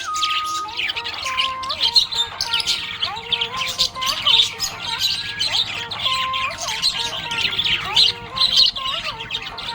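Budgerigars chirping and warbling without a break, a dense stream of quick, high chirps.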